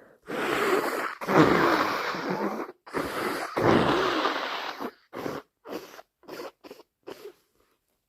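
A person with a cold blowing a congested nose hard twice, each blow lasting about two seconds, followed by a string of short sniffs.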